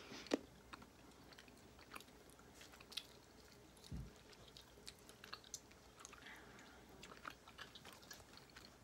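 Faint chewing of jelly beans: soft, irregular mouth clicks and smacks, with a low thump about four seconds in.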